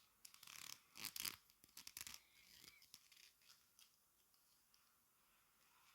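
Soft bristles of makeup brushes swishing and scratching in a quick run of strokes, loudest a little past a second in, fading to faint brushing after about two seconds.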